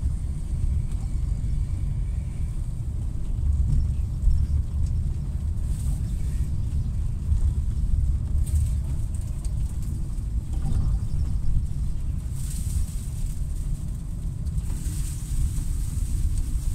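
Blizzard wind buffeting the microphone: a heavy, uneven rumble throughout, with a hiss of wind-driven snow swelling about twelve seconds in and again near the end.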